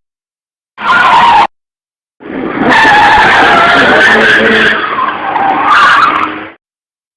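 Car braking hard with the tyres screeching: a short screech about a second in, then a long one with a wavering pitch that cuts off abruptly.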